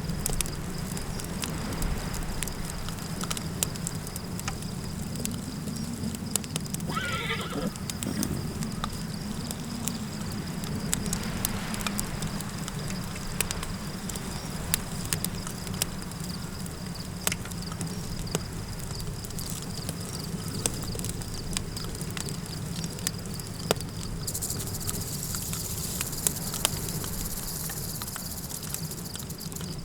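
Campfire crackling with many sharp snaps over a low steady rumble. About seven seconds in, a horse whinnies once, a short wavering call. For the last few seconds a high hiss joins in.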